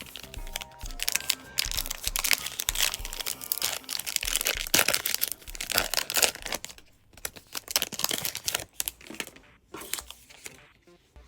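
Foil trading-card pack wrapper being torn open and crinkled, in a dense run of rustling through the first half, then sparser rustles.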